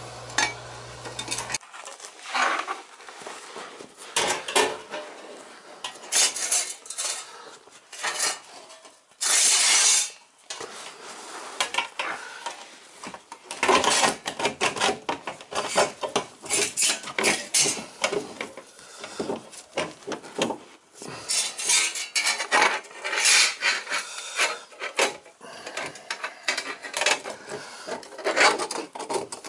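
Dishwasher kick-plate panels being slid, scraped and tapped into place against a tile floor: irregular scrapes, rubs and light metallic clatters, with one louder scrape lasting about a second around nine seconds in.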